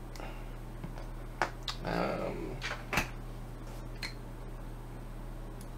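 A handful of light metallic clicks and taps as a small screwdriver probes and prises at the edge of the plated die-cast back plate of an old dial lock, trying to find out whether it is press fit. The sharpest click comes about three seconds in, over a faint steady hum.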